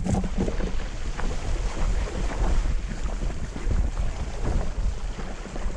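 Mountain bike riding through a shallow, stony creek: tyres splashing through water over gravel, with wind rumbling on the camera microphone and irregular knocks as the bike jolts over the stones.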